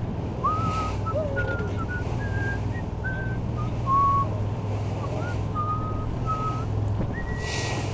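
A fishing boat's engine drones steadily under way, with a string of short whistled notes hopping from pitch to pitch over it, and a gust of wind on the microphone near the end.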